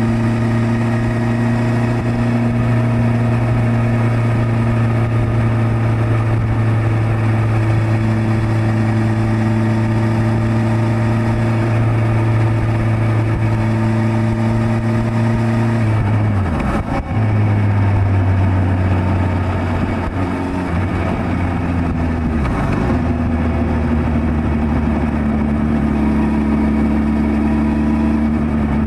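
Suzuki Hayabusa's inline-four engine running steadily at cruising revs, heard from on board the moving motorcycle. The engine pitch dips sharply about halfway through and again a few seconds later, then holds steady again.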